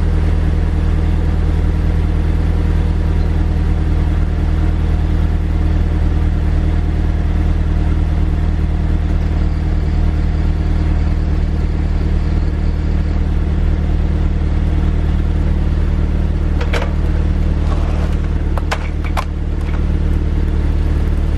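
Audi TT's turbocharged four-cylinder engine idling steadily at the exhaust tips while it warms up after a cold start. A few light clicks come through near the end.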